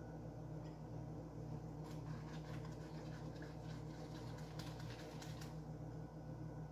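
A dishcloth rubbing a clear cup: faint, quick scratchy strokes that start about two seconds in and stop a little after five, over a steady low hum.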